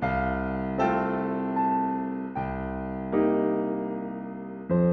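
Background music: slow keyboard chords, a new chord struck about every second and each fading away.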